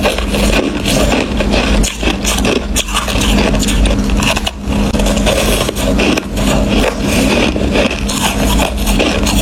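Crushed ice being bitten and chewed close up: loud, dense crunching and crackling that runs on almost without pause.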